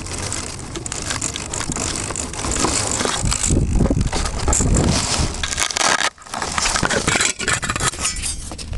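Handling noise on a small compact camera's microphone: irregular rustling and scraping as fingers rub over the camera while it is picked up from the grass. The noise cuts out sharply for a moment about six seconds in.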